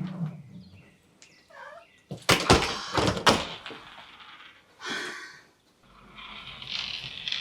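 A series of knocks and thuds, the loudest a quick cluster about two and a half to three and a half seconds in, with a rustling hiss near the end.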